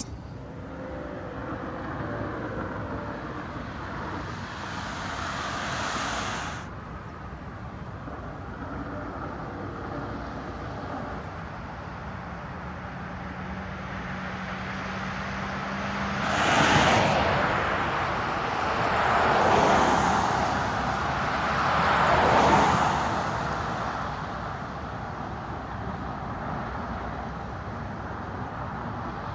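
Road traffic: a steady rumble of vehicles, with three passing close one after another about two-thirds of the way through.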